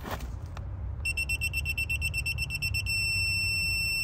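Digital torque wrench beeping while a flare nut on a mini split refrigerant line is tightened. Rapid high-pitched beeps start about a second in and turn into one continuous tone near the three-second mark as the set torque is reached, over a steady low rumble.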